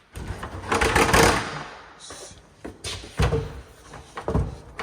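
A ladder being handled and set up: a loud scraping clatter about a second in, then several separate knocks as it is set down and positioned.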